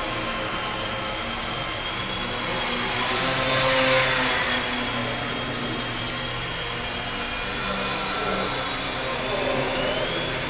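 Several small indoor radio-controlled model airplanes flying at once: their electric motors and propellers whine at high, wavering pitches. The sound swells about four seconds in as one plane passes close, and one motor's pitch rises near the end as it throttles up.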